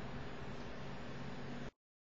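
Steady background hiss with a faint low hum: the room tone of the recording, with nobody speaking. It cuts off abruptly near the end into complete silence.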